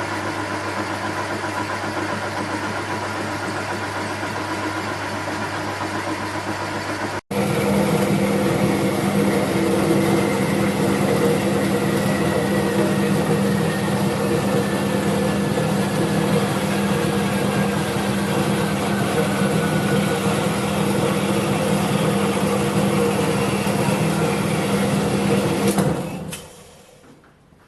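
Metal lathe with a quick-change gearbox running under power as it turns down a steel part, a steady machine hum with a gear whine. After a sudden break about seven seconds in it runs louder, with a faint whine slowly falling in pitch, and it winds down and stops near the end.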